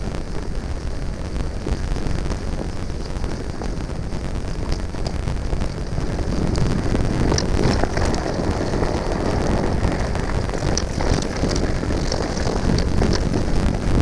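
Wind buffeting and trail rumble on a GoPro Hero5 Black's microphone during a mountain bike descent, getting louder about six seconds in, with many sharp rattling clicks from the bike over rough ground from then on. This is the recording whose audio the owner reports as a problem.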